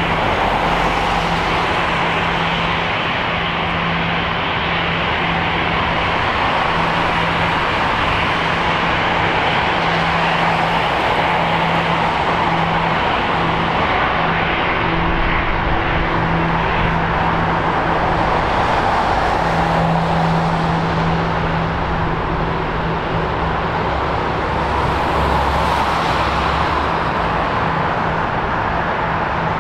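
Airbus A340's four jet engines running at taxi power as the airliner rolls along the taxiway: a steady, even jet noise with a low hum underneath and slow gentle swells.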